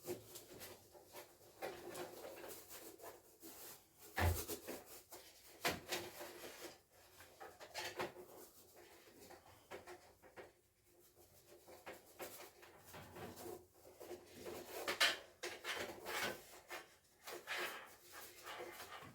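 Network cabling being handled and fitted to a rack patch panel: irregular rubbing and rustling with scattered sharp clicks and knocks, the loudest a knock with a dull thud about four seconds in.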